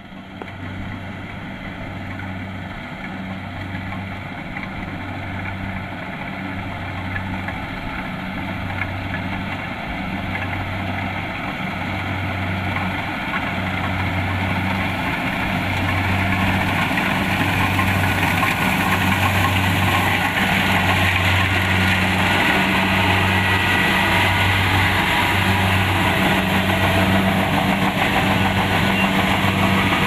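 Kubota DC-70 Plus combine harvester's diesel engine and threshing machinery running steadily with a slow, regular throb. It grows louder over the first fifteen seconds or so, then holds level.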